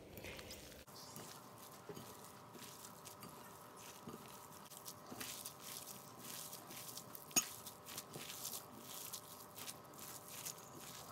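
Gloved hands squishing and turning a raw beef mince, vermicelli and vegetable filling in a glass bowl: faint, irregular squelching and rustling, with one sharper click about seven seconds in.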